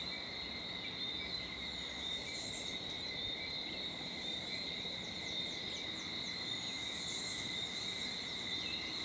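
Tropical insect chorus: a steady, unbroken high-pitched drone. A quick run of short, high chirps comes about seven seconds in.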